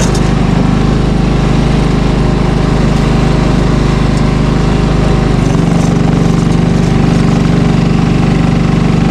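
Snowblower engine running steadily; its note shifts and strengthens about five and a half seconds in.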